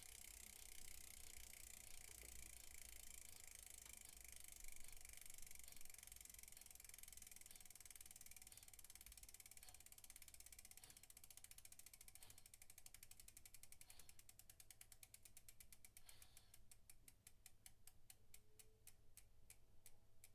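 Faint ticking of a bicycle's freewheel ratchet as the wheel coasts. The clicks are rapid and run together at first, then slow steadily until each tick is distinct near the end, as the wheel winds down.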